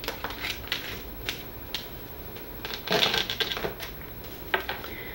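Tarot cards being handled on a tabletop: scattered light clicks and slaps as the deck is worked and cards are drawn and laid down, with a denser flurry of card noise about three seconds in.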